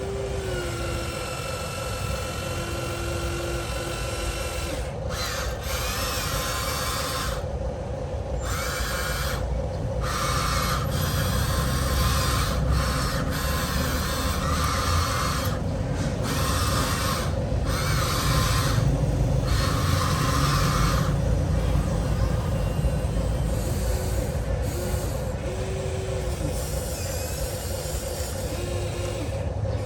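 Electric motors and hydraulic pump of an RC excavator whining steadily, with a rasping, grinding layer that starts and stops every second or two as the machine works.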